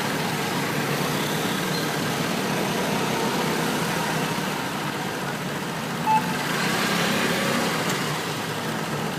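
Steady outdoor background noise, a low rumble with hiss, with no firework bangs. One brief short tone sounds about six seconds in.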